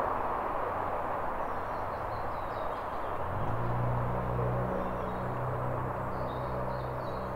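Outdoor ambience: a steady rushing background noise, with small birds chirping briefly twice. A low steady hum comes in about three seconds in.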